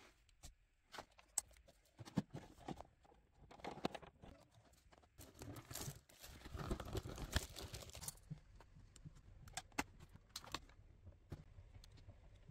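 Faint handling noises: scattered clicks and taps, with a couple of seconds of plastic wrapping and cardboard packaging crinkling about halfway through as a boxed smart-thermostat hub is unpacked.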